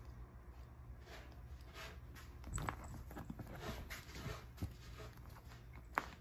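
Kitten playing on a leather armchair: faint, irregular scuffs and scratches of paws and claws against the leather and plush toys, with a louder patch about two and a half seconds in and a sharp click near the end.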